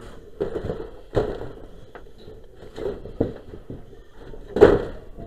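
Irregular knocks and crunches of burned debris and roofing being disturbed, several of them unevenly spaced, the loudest about four and a half seconds in.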